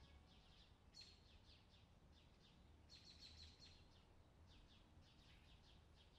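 Near silence with faint, high bird chirps in short quick runs, about a second in, around three seconds and again near the end.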